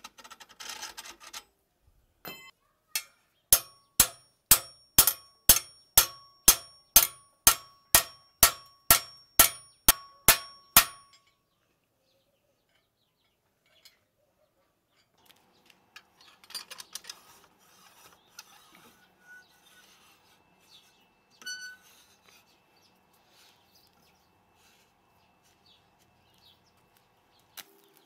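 Hammer blows on steel rebar held in a steel vise: a run of about fifteen sharp, ringing metallic strikes, two a second, after a few scrapes and single knocks. Faint scraping and handling of the metal follow.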